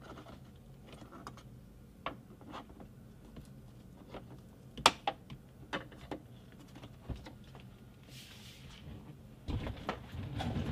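Scattered light clicks and knocks of hands working inside a car's rear door, with one sharp click about five seconds in and a cluster of knocking and rustling near the end.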